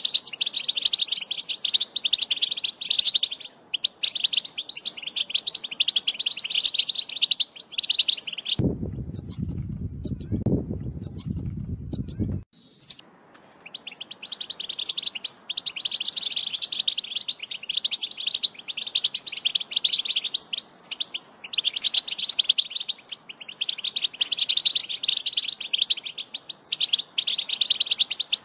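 European goldfinch song: a fast, continuous twittering chatter. It breaks off for about four seconds in the middle, where a low rumble takes its place.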